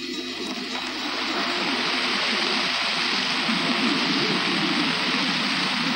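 Steady rushing of running water, growing louder about a second in.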